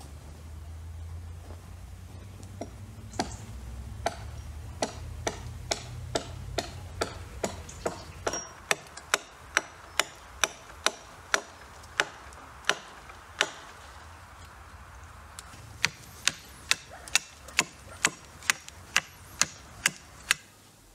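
A steady series of sharp knocks or clicks, about two a second, with a break of a couple of seconds past the middle, over a faint low hum that fades out partway through.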